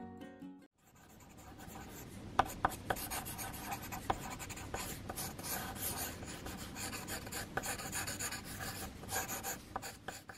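Pencil scratching and rubbing across sketchbook paper in quick sketching strokes, with a few sharper taps of the lead on the page.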